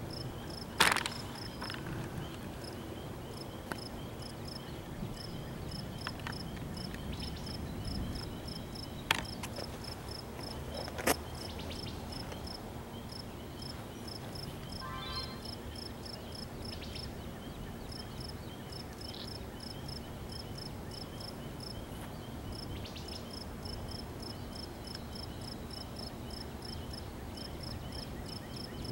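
Crickets chirping steadily in an evenly spaced high-pitched rhythm, about two to three chirps a second, with a short rasping insect call about halfway through. Three sharp clicks stand out louder, near the start and about a third of the way through.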